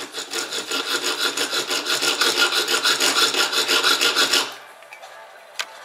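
A small hand hacksaw cutting through a short steel bolt for a laptop hinge, sawn by hand to shorten it, in quick, even back-and-forth strokes of about five a second that stop about four and a half seconds in. A single sharp click comes near the end.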